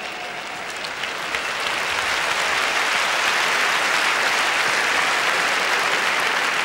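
A large seated audience applauding, the clapping swelling from about a second in and then holding steady.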